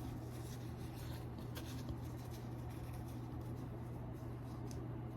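Faint scratchy brushing of makeup being applied, a few soft strokes, over a steady low hum.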